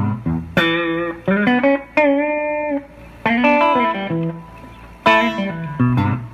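Electric guitar with humbucker pickups (a Collings City Limits Les Paul-style guitar) played through a Fender amp: a lead phrase of single picked notes with sharp attacks, some bent, with one note held and shaken with vibrato about two seconds in.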